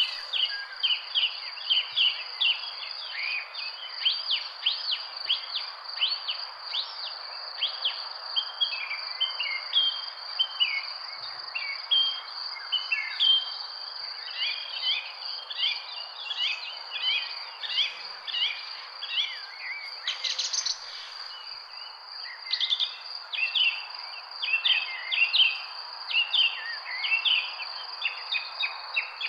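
Many birds chirping and calling in quick, overlapping notes over a continuous high insect trill and a steady background hiss; the trill drops out briefly about two-thirds of the way through.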